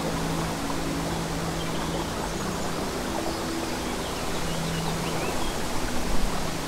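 Babbling brook running steadily under a soft, slow music pad of long held low notes. Small birds chirp faintly in the middle, and a chicken clucks.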